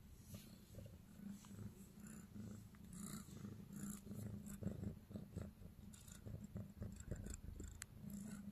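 Domestic cat purring close to the microphone, a low rumble that swells and fades in short pulses, with scattered soft clicks and rustles.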